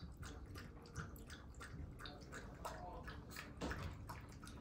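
A dog lapping water from a bowl, a quick run of wet laps, several a second.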